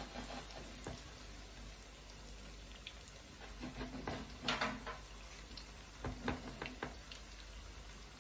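Zucchini fritters frying in shallow oil in a non-stick pan: a soft, steady sizzle with scattered crackles, a louder crackle about halfway through and a few more pops a couple of seconds later.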